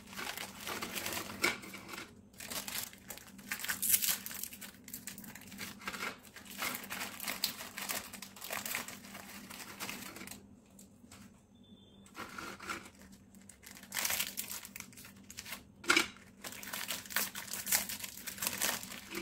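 Plastic wrappers of Parle-G biscuit packets crinkling and tearing as they are opened by hand, in irregular bursts with a short lull about halfway through.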